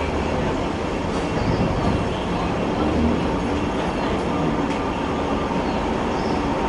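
Steady hum and rumble on board a stationary 7th-generation VVVF Hong Kong tram, mixed with the noise of road traffic moving close by.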